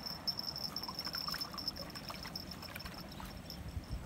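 Insects chirring: a steady high-pitched tone that pulses slightly, over faint water sounds and a few small ticks.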